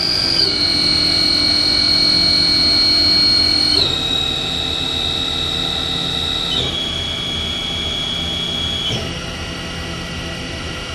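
Haas VF-2 CNC mill's spindle running at high speed with a steady high whine, slowed down in four steps, the pitch dropping a notch and the sound getting a little quieter with each step.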